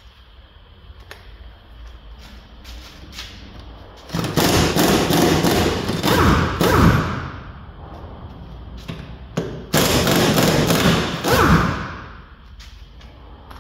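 Pneumatic impact wrench hammering on a front-suspension bolt in two bursts of a few seconds each, its pitch dropping as each burst ends, with a few sharp metal clicks between them.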